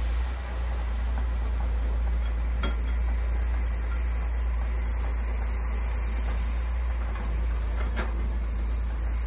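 Hydraulic excavator's diesel engine running steadily as the machine digs.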